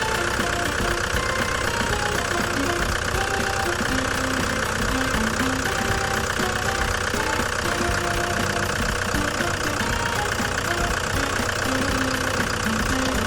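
Toyota HiAce 200-series diesel engine idling steadily with its diesel clatter.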